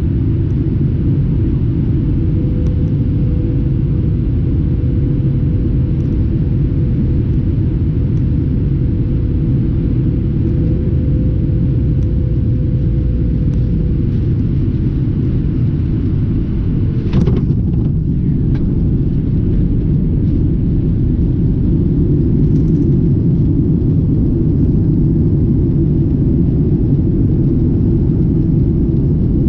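Cabin noise of a Boeing 737-800 on final approach and landing: a steady low rumble of its CFM56 engines and airflow with a faint steady tone. About 17 seconds in there is a sharp thump as the wheels touch down, followed by a couple of knocks. The rumble then grows a little louder as the spoilers come up and the jet rolls out on the runway.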